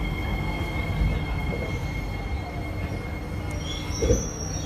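SMRT C151B metro train heard from inside the car: a low rumble with two steady high-pitched tones over it. About four seconds in there is a short knock, and a higher tone starts just before it.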